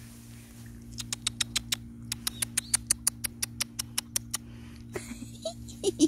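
Rapid, evenly spaced tongue clicks, about six a second, from a person calling Jindo puppies to come over, starting about a second in and stopping after about four seconds.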